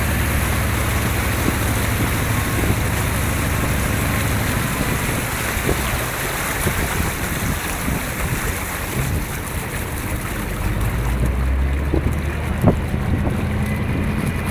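Amphibious tour boat under way: its engine hums low and steady under the rush of water churning along the hull, with wind buffeting the microphone. The engine hum eases in the middle and grows stronger again a few seconds before the end, and there is a single sharp knock near the end.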